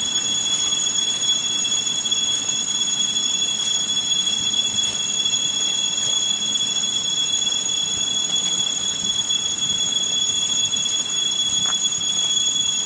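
Horror sound effect: a steady, high-pitched metallic screech, two piercing tones held over an even hiss.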